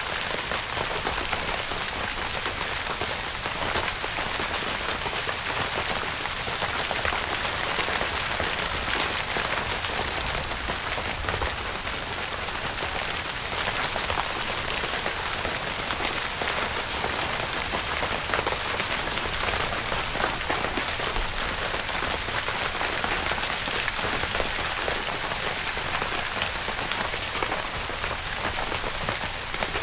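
Steady rain falling on a tent's fabric: a constant hiss of rain with many individual drop hits at an even level.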